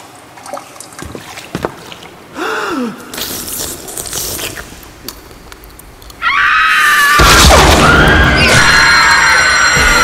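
Bubbling, trickling liquid, then about six seconds in loud music cuts in suddenly, with sliding high tones over it.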